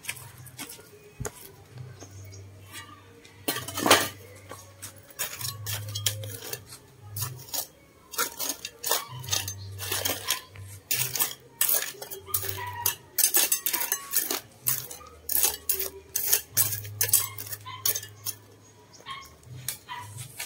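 Stones and a steel mason's trowel clinking and scraping in gravelly dirt: many irregular sharp clinks and knocks.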